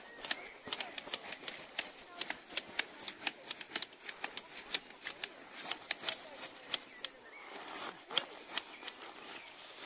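Tea-harvesting shears clipping tea bushes: quick, irregular snips and clicks, several a second, without a break.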